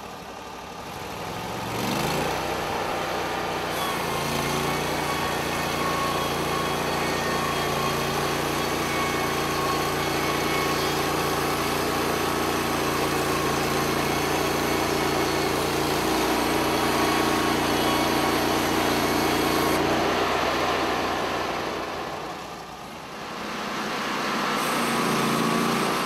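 Portable band sawmill's engine running at a steady speed, revving up about two seconds in; it dies down briefly near the end and picks up again.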